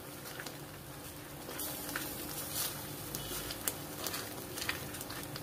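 A spatula stirring thick curry masala in a steel kadhai, making irregular soft scrapes and wet clicks against the pan.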